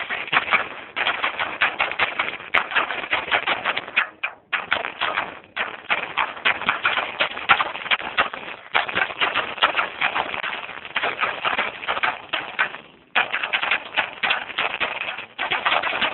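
Rapid, dense clicking and rattling in stretches of a few seconds, broken by brief pauses.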